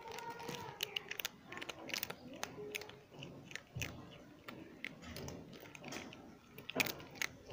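Kittens chewing and crunching crisp food: a quick, irregular run of sharp crunches and bites, loudest a little before the end.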